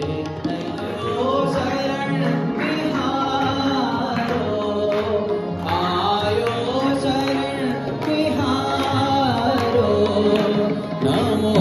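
A male voice singing a Hindi bhajan in long, bending phrases, accompanied by tabla, harmonium and electronic keyboard.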